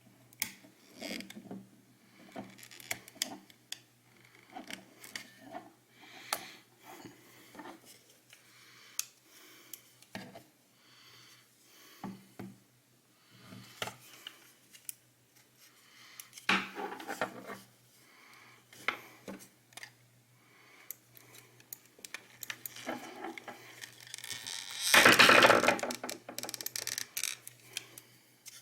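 Small plastic clicks, taps and scrapes as a computer mouse's plastic shell is handled and pried at with small hand tools, with a louder rubbing noise about a second long near the end.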